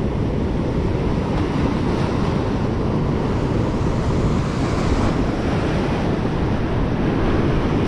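Surf washing in over flat shore rocks, with wind buffeting the microphone; a steady, unbroken rush of noise.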